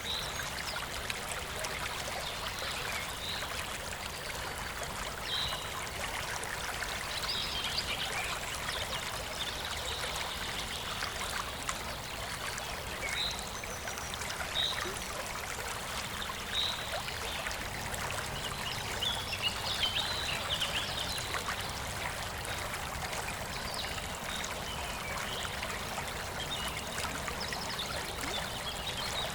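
A stream running steadily, with birds chirping now and then in short calls.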